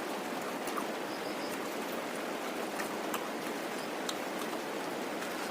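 Steady rain, an even hiss with scattered faint clicks.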